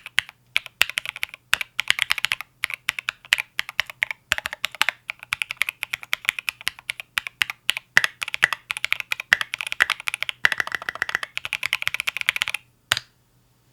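Fast typing on a mechanical keyboard with Obsidian switches and SA-profile keycaps: a dense run of key clicks that ends in a quick flurry, then one last keystroke a moment later.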